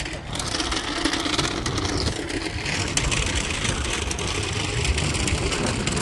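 Toy Henry vacuum cleaner pulled along a rough tarmac path, its small plastic wheels giving a steady gritty rumble and rattle.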